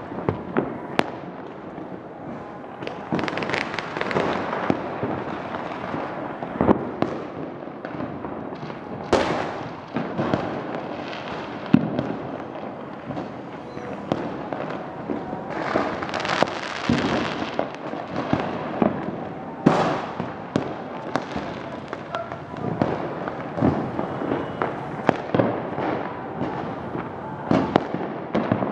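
Fireworks and firecrackers going off all over a town: a dense, continuous run of bangs and crackles, some close and some distant, with a few longer stretches of hissing crackle.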